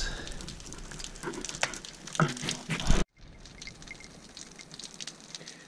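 Water dripping and pattering onto rock in a cave, in irregular drops with a few louder splashes. About three seconds in the sound cuts off abruptly, and fainter scattered drips follow.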